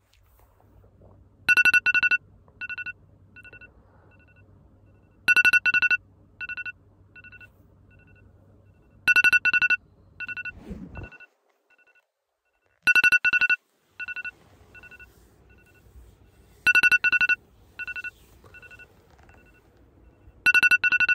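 Electronic alarm beeping: a double beep followed by fainter, fading echoes of it, repeated six times about every four seconds. The alarm is waking a sleeper.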